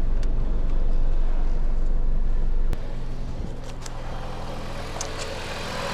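2016 Jeep Patriot's four-cylinder engine idling steadily, just brought back to life after a cranks-but-won't-start fault. About halfway through there is a sharp click, after which the engine sound is quieter.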